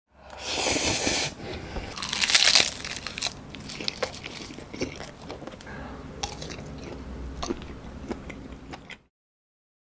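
Close-miked mukbang eating sounds: two loud crunchy bites in the first three seconds, then quieter chewing with small wet clicks. It stops abruptly about nine seconds in.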